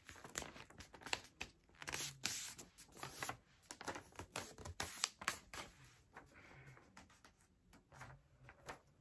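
A sheet of printer paper rustling and crackling in short, scattered crinkles as it is handled and folded, thinning out over the last few seconds.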